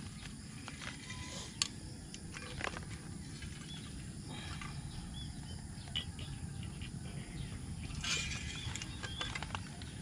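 Outdoor ambience with a steady low rumble, a few short chirps from small birds, and scattered clicks and a rustle near the end from a bag of coffee beans and camp gear being handled on the table.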